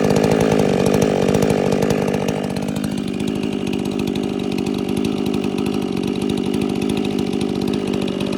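Custom-built Stihl MS 500i fuel-injected two-stroke chainsaw running hard at high revs. Its pitch drops about three seconds in and then holds steady at the lower note.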